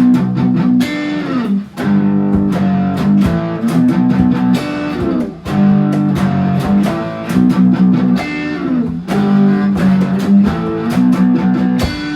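Instrumental guitar music: strummed chords in a repeating pattern, the intro of a song.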